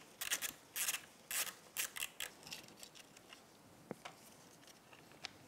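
Hand ratchet clicking in short quick runs as it backs out the 10 mm bolt on a dirt bike's left engine cover. The clicking stops after about three seconds, followed by a single sharp tick about four seconds in and another near the end.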